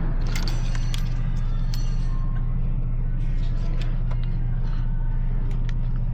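A steady low machine hum, with small sharp clicks and light rattles as a spark plug coil boot is worked off and handled.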